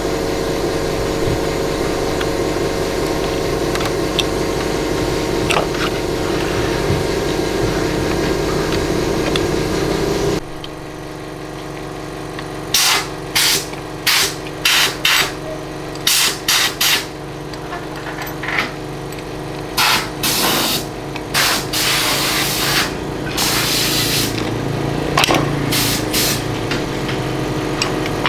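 Motorcycle engine running steadily. About ten seconds in it gives way abruptly to a string of short, sharp hissing blasts, each under half a second, of the kind made by spraying cleaner or air onto engine parts.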